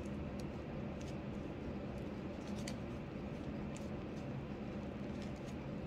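Clear plastic budget pouches being leafed through by hand, giving a few faint, scattered crinkles and ticks.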